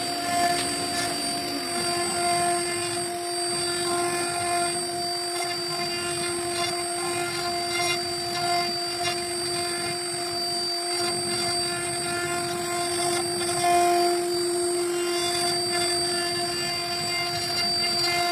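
CNC router spindle running with a steady whine while its bit carves a decorative groove pattern into a wooden cabinet door panel.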